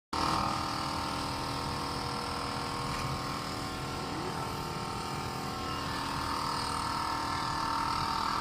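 Air compressor running steadily: a continuous machine drone with a steady whine on top.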